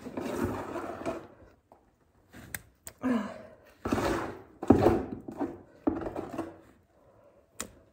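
Bricks and tools being handled on a stone hearth as bricks are set in fast-setting adhesive: a few short scrapes and thunks at irregular intervals, and a sharp click near the end.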